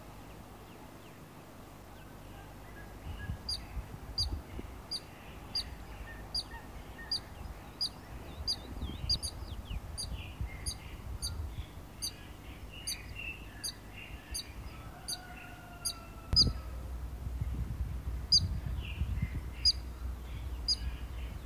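A bird chirping one short, high note over and over, about one and a half times a second, with a brief pause near the end and fainter birdsong behind it. A low rumble runs underneath, heavier after a thump about sixteen seconds in.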